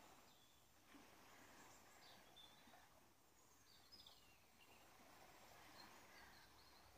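Near silence: faint outdoor ambience with a few faint, high bird chirps scattered through.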